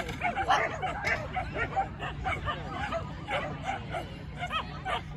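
Dogs barking and yipping in short, repeated bursts across an agility field.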